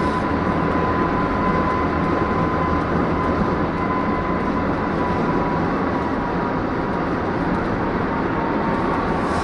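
Steady road and engine noise heard inside a vehicle's cabin while driving at highway speed, with a faint steady whine that fades out about two-thirds of the way through.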